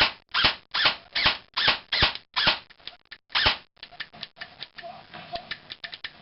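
Airsoft SR-25 electric gun firing a string of about nine shots, two to three a second, each a short sharp burst. After that comes a run of lighter, irregular clicks.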